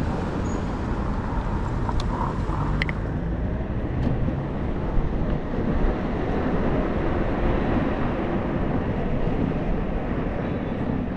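Riding an electric scooter through city streets: steady wind rumble on the microphone mixed with traffic noise. A few brief high clicks come about two to three seconds in.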